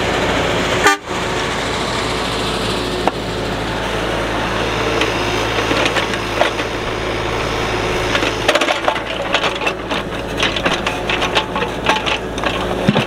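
Kubota mini excavator's diesel engine running steadily under digging load, with a knock about three seconds in and a dense run of sharp cracks and snaps in the last few seconds as the bucket works the ground.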